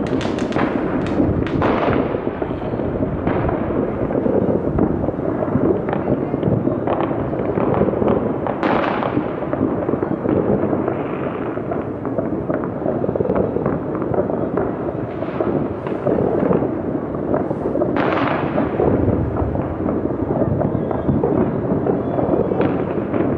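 Many fireworks and firecrackers going off across a city at once: a dense, unbroken crackle of distant bangs. Louder blasts stand out about nine and eighteen seconds in.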